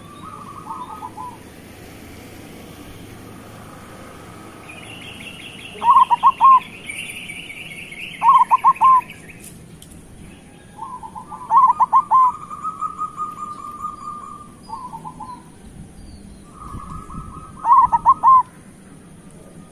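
Zebra dove (perkutut) cooing: four loud bursts of quick, staccato coos, each a short run of falling notes, come at intervals of a few seconds, linked by longer, steady coo notes.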